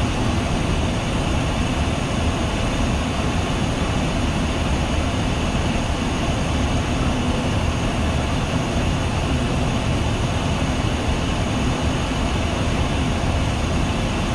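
Steady flight-deck noise of a Boeing 737-800 in descent on approach: an even rush of airflow and engine noise that holds constant, with no call-outs or radio.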